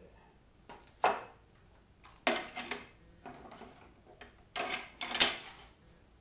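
A length of 3-inch PVC pipe is handled and shifted on a miter saw's table, giving several short clattering and scraping bursts. The loudest come about a second in and near the end. The saw is not running.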